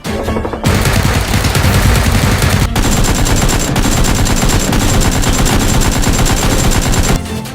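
Rapid automatic gunfire: one long continuous burst that starts about half a second in and stops just before the end, with a thin high tone over its second half.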